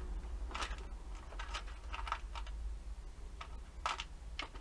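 Irregular light clicks and taps of small metal parts and tools being handled at a workbench, around ten in a few seconds, over a steady low hum.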